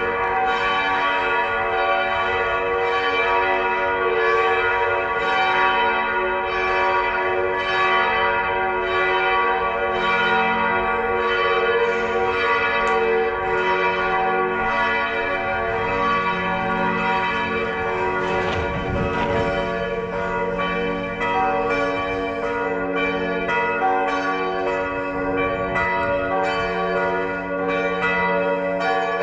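Church bells pealing, with fresh strikes about once or twice a second overlapping the ringing of the ones before.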